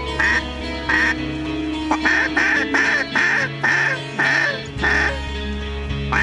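Mallard-type duck quacking: two single loud quacks, then a run of about six evenly spaced quacks and one more near the end, over steady background music.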